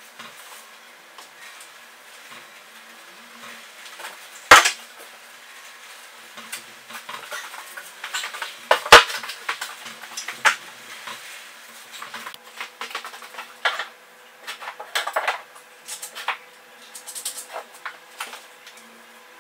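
Hand tools and MDF boards being handled: two loud sharp clacks, about four and a half and nine seconds in, then a run of lighter clicks, taps and knocks.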